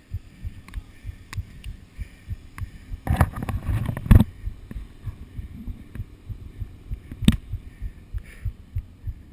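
Rapid low, muffled thumps from a GoPro being carried in its housing, with a louder stretch of knocking about three seconds in and a single sharp click about seven seconds in.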